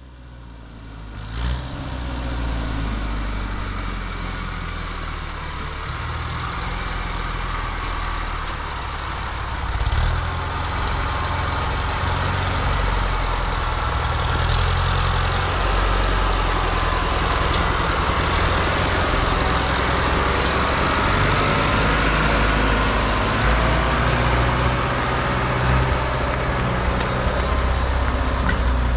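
A motor vehicle on the move: a steady low engine rumble under a broad road and wind noise, which grows louder about ten seconds in and stays up.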